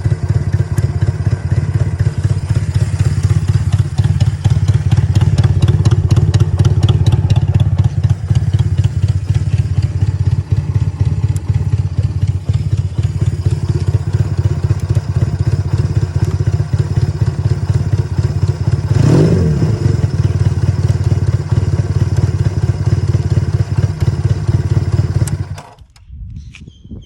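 Restored Honda C95's 150 cc parallel-twin four-stroke engine idling steadily on an electronic-points ignition, with a brief dip and rise in engine speed past the middle. It is switched off about 25 seconds in, after which a few faint bird chirps are heard.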